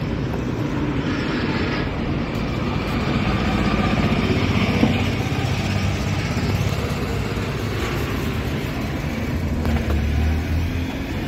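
Steady rumble of road vehicles going by, swelling a little about halfway through, with one sharp click near the middle.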